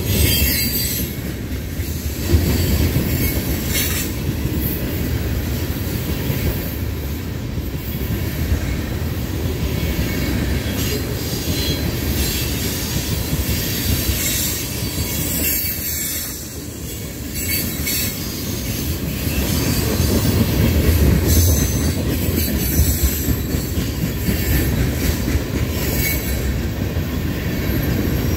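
A loaded freight train's cars (centerbeam lumber flatcars, a covered hopper, then tank cars) rolling past close by: a steady rumble of steel wheels on the rails with scattered clicks and clanks. The sound eases briefly just past the middle, then builds again.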